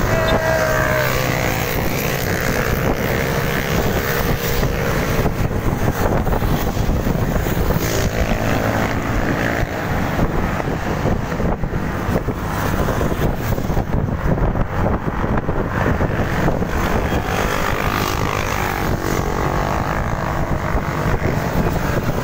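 Steady rushing wind on the microphone and road and engine noise of a moving vehicle, unbroken throughout.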